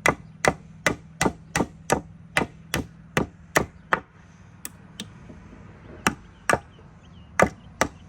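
Hammer blows on nails in a wooden board, sharp and evenly spaced at about two a second, working the nails out. The blows pause about four seconds in and start again near six seconds.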